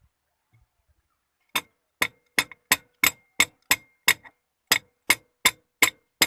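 A steady run of sharp metallic ticks, about three a second, each with a short ringing tone, starting about a second and a half in.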